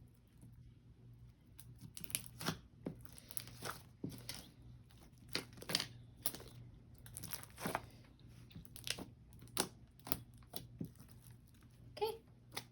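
Clear slime, still full of air bubbles, being stretched and squished by hand: faint irregular sticky crackles and small pops, starting about two seconds in.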